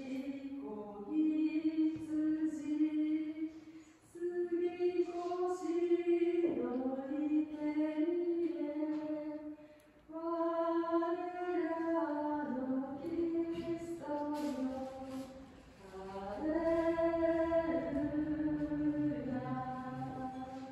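A group of voices, mostly women's, singing a church hymn in phrases of held notes, with short pauses for breath between phrases.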